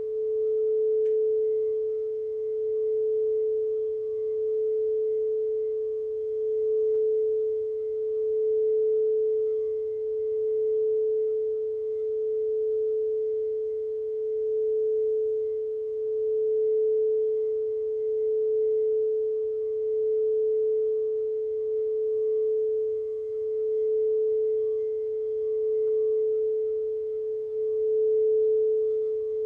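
Singing bowl sounding one sustained tone, with faint higher overtones. The tone is held without fresh strikes and swells and fades about every two seconds.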